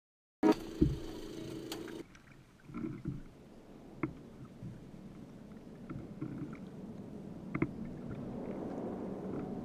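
Water gurgling and lapping against the hull of a kayak, heard close to the bow, with scattered light knocks and clicks. It cuts in suddenly with two sharp knocks about half a second in.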